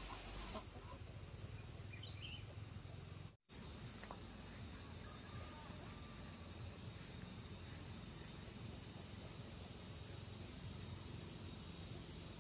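Insect trilling steadily on one high continuous note over faint outdoor background noise. The sound cuts out completely for a moment about three and a half seconds in.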